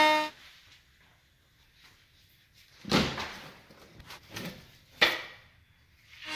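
Rockwell Sonicrafter oscillating multi-tool cutting drywall cuts off about a third of a second in. After a quiet pause come a few knocks and thumps, the loudest about three seconds in and a sharp one at about five seconds. The tool starts running again near the end.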